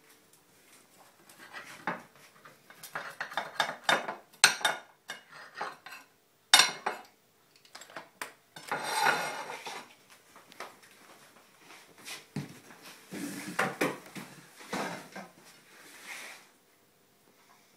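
Cutlery scraping and clinking against a plate in irregular strokes as a pizza is cut, with one sharp clack about six and a half seconds in the loudest.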